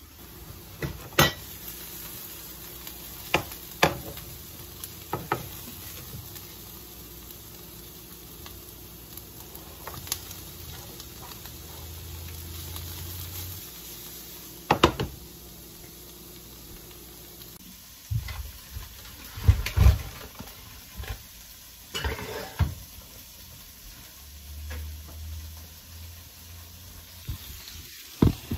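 Food sizzling in a frying pan, with sharp clanks of a utensil and the pan knocking every few seconds as it is stirred and handled.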